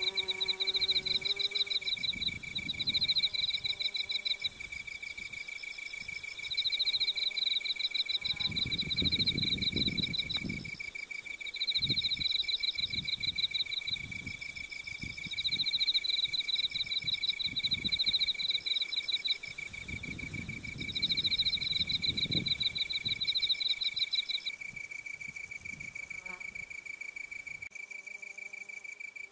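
Insects singing: one keeps up a steady high pulsed trill, while another sings a higher, faster-pulsed song in repeated phrases every couple of seconds, which stops near the end. Twice there is a spell of low rustling noise under the insect song.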